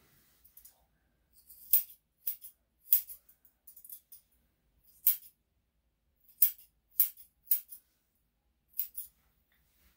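Grooming shears snipping through a dog's long leg coat: about ten sharp, crisp snips at an uneven pace, some in quick pairs.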